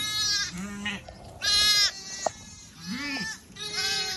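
Shetland sheep bleating: the high, thin calls of young lambs and lower calls of ewes answering, several overlapping. A sharp click about two seconds in.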